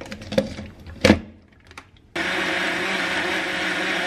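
Countertop blender jug set into place with a few clicks and a knock, then the blender motor starts suddenly about halfway through and runs steadily at full speed, blending frozen banana, yogurt and spinach into a smoothie.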